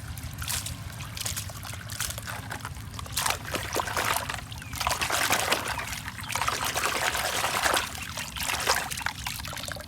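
Water running and trickling, swelling into heavier splashing for a few seconds in the middle, as a small toy vehicle is washed by hand.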